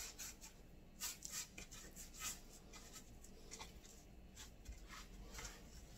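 Faint, scattered soft taps and rubbing of fingers pressing lemon pepper seasoning into raw fish fillets on a plastic cutting board.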